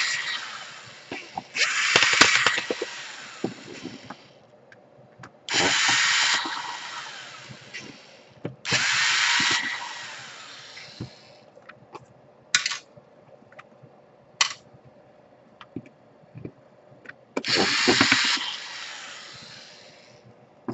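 Electric screwdriver running in five short bursts, each starting suddenly and winding down over a second or two, backing out the screws of a laptop's bottom case. A few sharp clicks come between the bursts.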